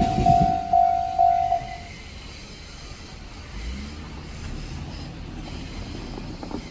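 Japanese railway level crossing's warning bell ringing about twice a second and stopping a little under two seconds in, the signal that the train has cleared the crossing. The last of the passing train's wheel clatter is heard at the start, then only a faint low rumble.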